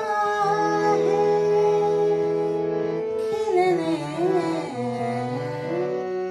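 A woman sings a slow ghazal melody over held accompanying notes and tabla. About halfway through, her line turns into winding, ornamented runs that settle back onto a held note near the end.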